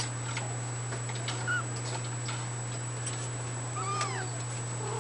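Two-week-old fawn Abyssinian kitten mewing: a faint short squeak about a second and a half in, then a clearer, arched mew about four seconds in. Under it are a steady low hum and small scattered clicks.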